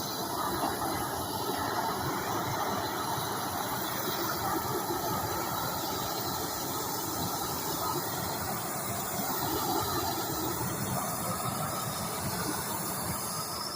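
Propane torch burning with a steady, even hiss, as it scorches the carved wood.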